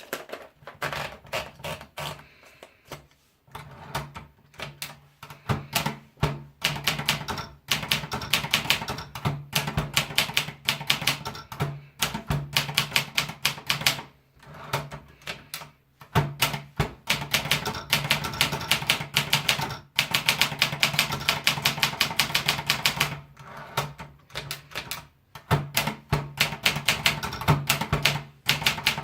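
Olympia Splendid manual portable typewriter being typed on: runs of rapid key strikes, several a second, broken by short pauses every few seconds.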